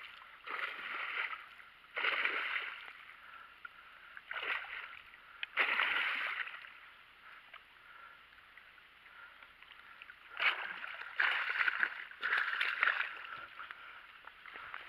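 Hooked pike splashing at the water's surface by the bank, in irregular bursts: several in the first six seconds, then a quieter gap, then more about ten to thirteen seconds in.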